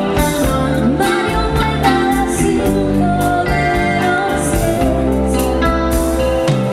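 Live band playing through a PA: a woman singing lead over electric guitar, bass guitar, keyboards and a drum kit with a steady beat.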